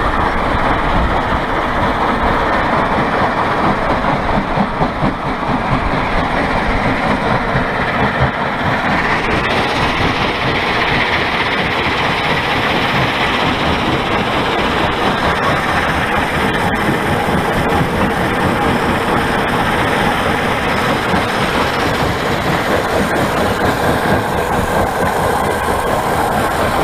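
Belt conveyor carrying crushed stone, running over its rollers: a loud, steady rumbling clatter of the moving belt and stone. About nine seconds in, the noise turns brighter and hissier.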